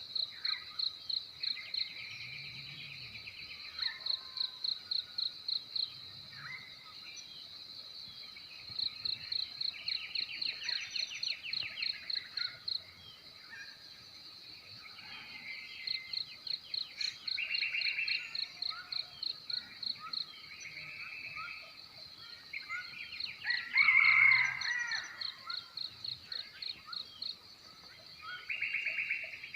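Crickets chirping in runs of about four to five chirps a second, stopping and starting every few seconds, over scattered bird calls and trills. In the last quarter a louder, fuller bird call stands out.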